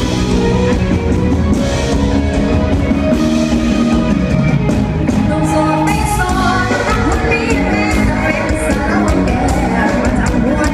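Thai band music with a sung melody over a steady beat.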